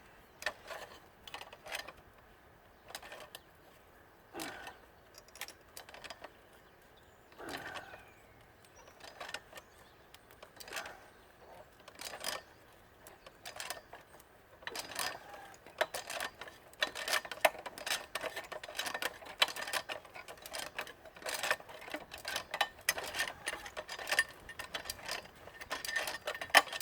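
Irregular metallic clicks and clinks of hand tools on the fasteners and sheet-metal parts of a central air conditioning unit being taken apart. They are sparse at first and come quicker and denser from about halfway through.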